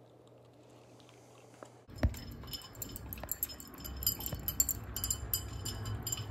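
A dog eating dry kibble from its bowl: a knock about two seconds in, then rapid clinking of metal collar tags against the bowl, mixed with crunching. The first two seconds are nearly quiet.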